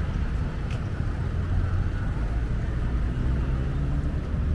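Steady low outdoor rumble with a faint background haze and no clear single source.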